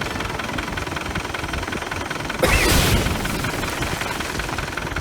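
Isuzu D-Max pickup engine running steadily, with a loud rushing burst about halfway through that lasts about half a second.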